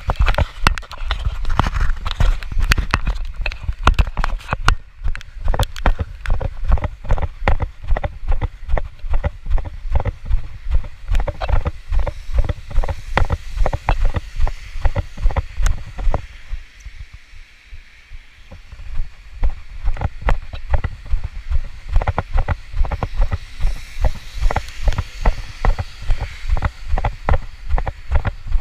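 Quick, even footsteps on a wet pavement, about two to three a second, each step also jolting the handheld microphone with a dull thump. The steps stop for a couple of seconds just past the middle, then carry on.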